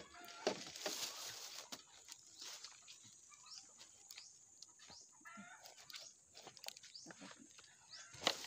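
A few short animal calls, one with a falling pitch about five seconds in, among scattered light clicks and rustles.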